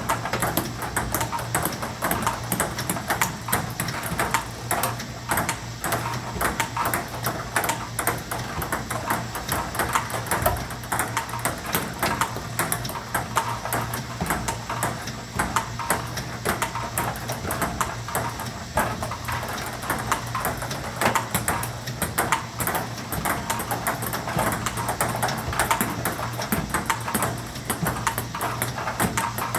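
Table tennis balls fed by a ball robot and struck back with a paddle: a continuous run of sharp ping-pong clicks, several a second, over a steady low hum.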